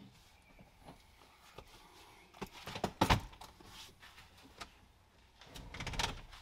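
Scattered clicks and knocks of hand work at a pickup truck's seat base, with a sharp knock about three seconds in and a rubbing scrape near the end.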